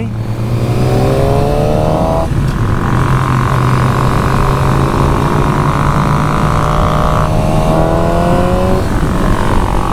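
Motorcycle engine under hard throttle. Its pitch climbs for about two seconds, changes abruptly and holds a steady note for several seconds, then climbs again near the end.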